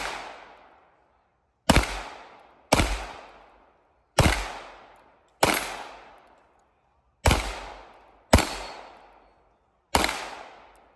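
Single gunshots fired in a drill: seven shots, mostly in pairs about a second apart, each fading out over about a second.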